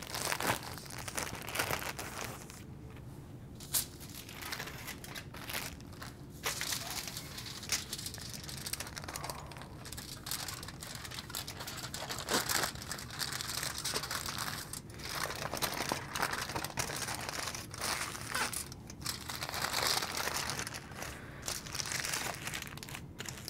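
A plastic tortilla bag and a sheet of aluminum foil crinkling and rustling as a stack of flour tortillas is pulled out and wrapped in the foil. The crinkling comes in irregular handling bursts with occasional sharp crackles.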